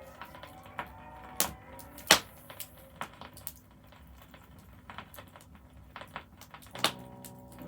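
Vinyl record surface noise in the quiet groove between tracks: scattered clicks and pops over faint hiss, with a sharp pop about two seconds in. Near the end the music of the next track comes in with a sustained chord.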